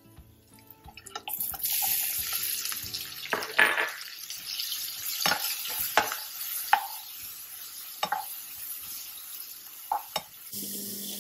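Sliced onions dropped into hot spiced oil in a nonstick kadai start sizzling loudly about a second and a half in. They keep frying with a steady sizzle while a spoon stirs them, scraping and tapping the pan several times.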